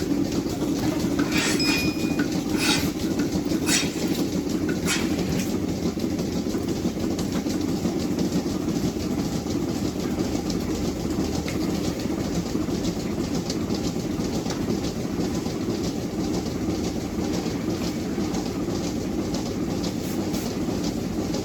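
Steady mechanical rumble of running machinery, with a few sharp clicks or knocks in the first several seconds.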